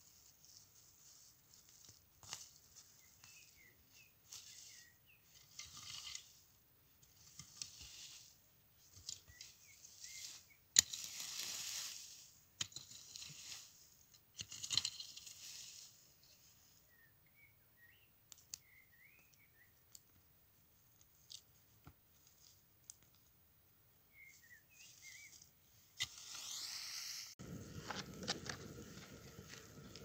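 Dry leaves rustling and scraping in repeated short bursts as they are gathered up off the ground, with brief bird chirps in the gaps. Near the end a wood fire takes over, crackling with sharp pops.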